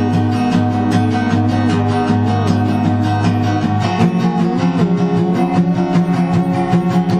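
Acoustic song: guitar strumming in a steady rhythm with a wavering melody line above it. The chord changes about four seconds in.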